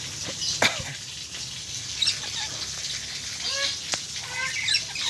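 Pet lories giving short chirping calls in quick little runs, with two sharp clicks, one about half a second in and one near four seconds.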